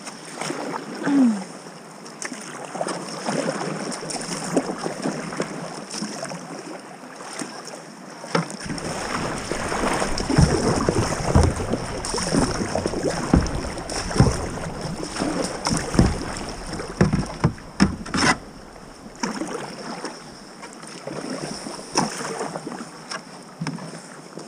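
Kayak paddling: paddle blades dipping and splashing and water slapping against the plastic hull, busiest through the middle, with wind on the microphone. A single sharp knock comes about three-quarters of the way through.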